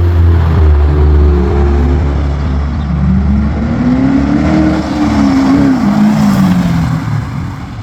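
Ford Mustang V8 engine running with a deep rumble, its revs climbing slowly from about two seconds in and easing back down near the end.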